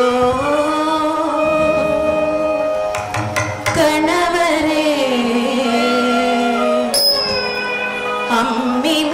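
Carnatic-style music for a dance: a voice holds long notes that glide up and down over instrumental accompaniment. A few drum strokes come about three seconds in and again about seven seconds in.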